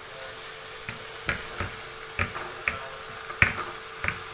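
Irregular sharp clicks and knocks in a frying pan as chopped ridge gourd is tipped in and moved around the potatoes with a wooden spatula, over a faint steady hiss.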